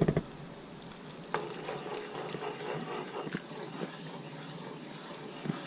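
Sauce boiling in a cast-iron skillet while a spoon stirs in a cornstarch slurry, a steady bubbling hiss with a few light clicks of the spoon against the pan.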